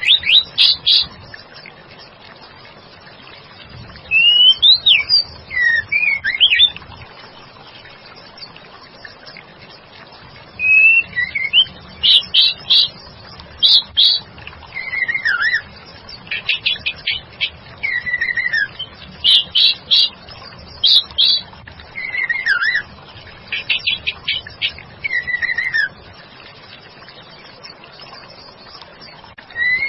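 White-rumped shama (murai batu) calls, offered as a female calling to draw in a male: bouts of rapid chattering notes and short downward-sliding whistles, repeated with pauses between, over a steady hiss.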